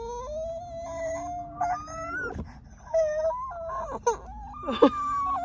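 Nine-month-old baby crying angrily in a run of long wails: one drawn out for about two seconds, then several shorter ones, pitching higher near the end.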